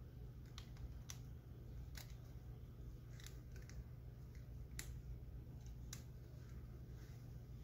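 Faint, crisp crackling ticks of hair as a loc is twisted and rolled between the fingers, a handful of separate clicks about a second apart, over a steady low hum.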